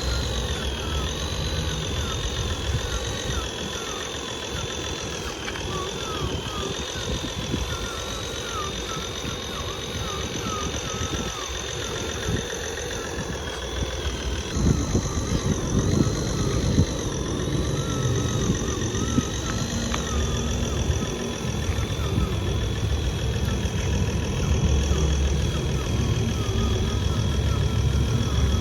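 Small motors of radio-controlled construction models running: a thin high whine that swells up and down in pitch as the machines work, over a low rumble that gets somewhat louder in the second half.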